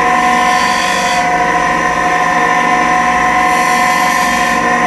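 Electric sanding machine running steadily with a constant motor whine. Harsh hissy sanding noise swells twice, which fits a graphite tool being pressed against the sanding pad.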